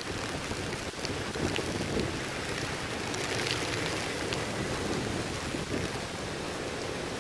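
Typhoon rain and wind: a steady rush of heavy rain on wet pavement with strong wind gusting, partly buffeting the microphone, swelling slightly now and then.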